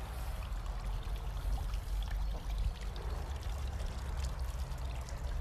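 Water from a tiered garden fountain splashing and trickling steadily, with a low rumble underneath.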